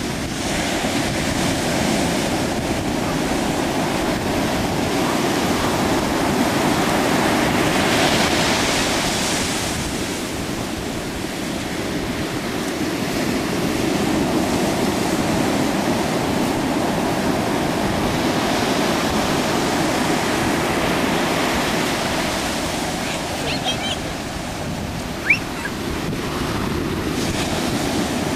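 Ocean surf breaking and washing up a sandy beach: a steady rush of water that swells and eases every several seconds. A brief sharp sound near the end.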